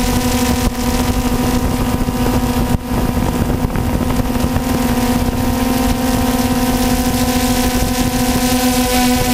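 Hovering multirotor camera drone's motors and propellers, heard from the onboard camera: a steady buzzing hum that holds one pitch, over a low rumble of wind on the microphone.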